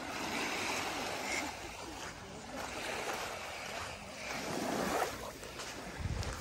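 Small waves washing and lapping on a sandy beach, swelling and easing every couple of seconds, with a brief rumble of wind on the microphone near the end.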